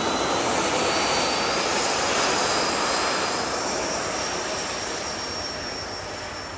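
Electric ducted fans of radio-controlled jet models at high power, a loud rushing whine with thin high-pitched fan tones. It fades as the model rolls away down the runway on its takeoff run.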